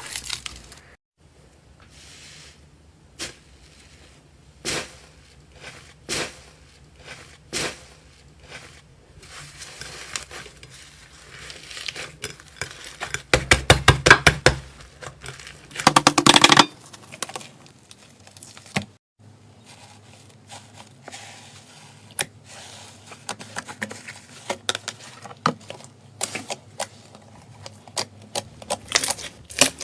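Slime being pressed and poked, giving scattered sharp clicks and crackles, with a louder, denser stretch of crackling about halfway through.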